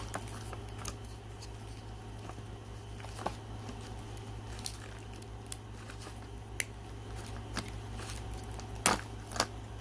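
Scattered light clicks and taps of hands working the plastic connectors and wiring harness of a car door, with a sharper click near the end, over a steady low hum.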